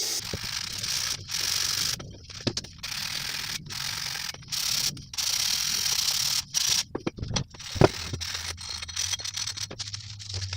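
Hand tools working on an old bird feeder: stop-and-start bursts of ratcheting clicks and scraping, with a sharp knock about eight seconds in.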